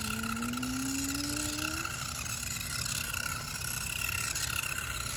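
Electric drive motors of a BEZGAR TD141 1:14-scale RC crawler whining as it drives, the pitch rising steadily over the first two seconds as it speeds up, then running on at a steady whine.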